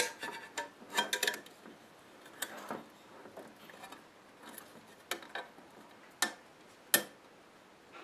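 Sheet-steel cover of a computer power supply being pried up and lifted off its case: a string of separate light metallic clicks and clinks, the two sharpest near the end.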